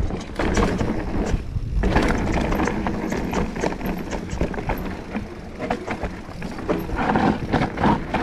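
Mountain bike descending a rocky trail: tyres and frame clattering with many quick knocks and rattles over a steady low rumble.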